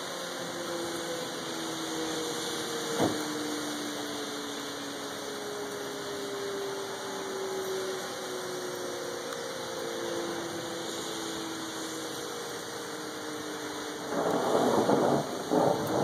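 Outdoor tornado warning siren winding down, its tone slowly falling in pitch and fading, over a steady hiss of rain. A sharp click comes about three seconds in, and a louder rushing noise comes near the end.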